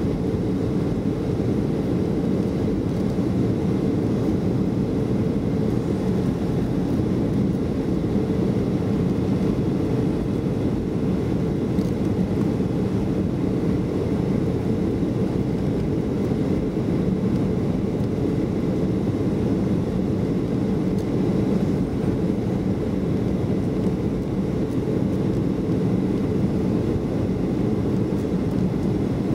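Steady cabin noise inside a Boeing 737-500 descending on approach: its CFM56-3 turbofans and the airflow over the fuselage make an even, low rush, with a faint steady whine above it.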